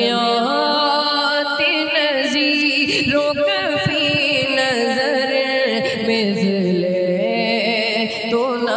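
A man singing a naat in long, drawn-out notes that waver and bend in melismatic ornaments.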